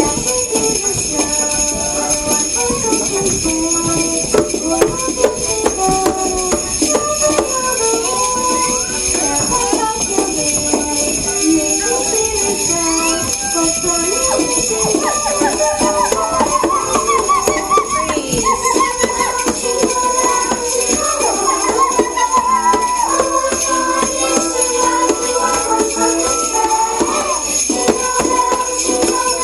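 Sleigh bells jingling steadily without a break, over instrumental music with a moving melody.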